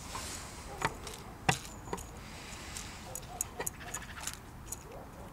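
Chickens pecking at mixed grain and seed in a plastic tub and a ceramic bowl, their beaks tapping and clicking against the containers and the seed. A couple of sharper taps come about one and one-and-a-half seconds in, then a quicker run of light clicks.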